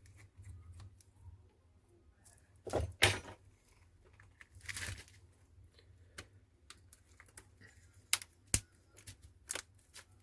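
Small tools and phone parts being handled on a work surface: scattered clicks and taps, with a couple of brief scraping, rustling sounds around three and five seconds in.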